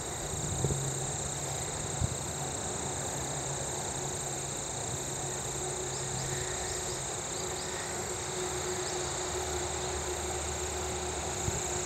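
Steady high-pitched insect chirring with a low hum underneath, and a few short chirps in the middle. The hum swells slightly near the end as a train approaches.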